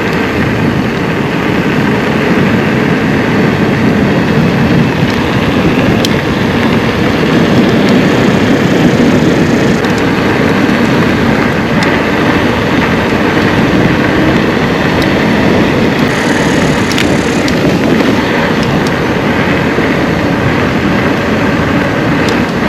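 Steady rush of wind and tyre rumble from an electric mountain bike rolling along a trail, with a few sharp clicks and rattles.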